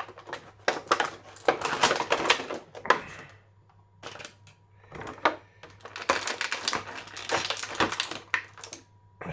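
Plastic toy packaging crackling and clicking as action figures are pulled out of their tray, in two spells of rapid clatter with a short lull between.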